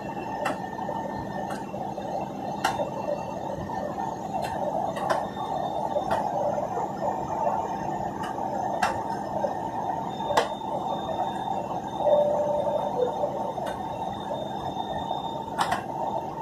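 Steady airliner cabin noise during the climb after takeoff, heard from a window seat, with occasional sharp clicks scattered through it.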